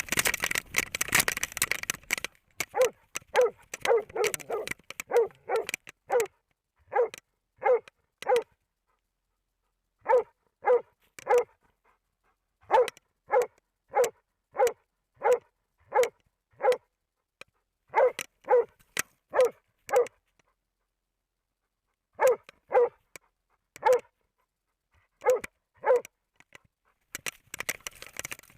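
Hunting dog barking over and over, about one to two barks a second in runs with short pauses, the steady bay-barking ('los') of a loose moose dog. It opens with about two seconds of rustling noise.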